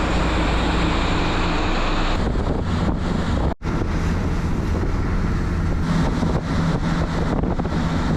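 Wind buffeting the microphone over the steady drone of a boat's engine, broken by a brief cut about three and a half seconds in.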